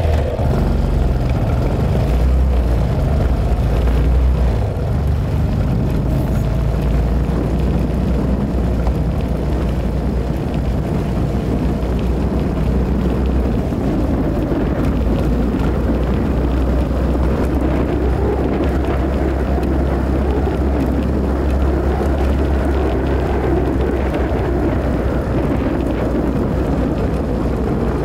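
Steady noise of a motorcycle on the move: wind rushing over the microphone, heavy and low, with the bike's engine running underneath.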